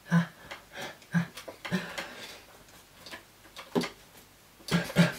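Short, scattered mouth sounds and breaths from a person signing, with light taps of the hands, about half a dozen in all and a close pair near the end.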